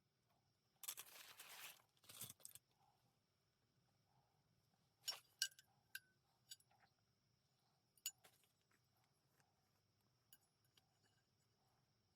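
Two short rustles, then a scattering of small sharp clicks and clinks, all faint.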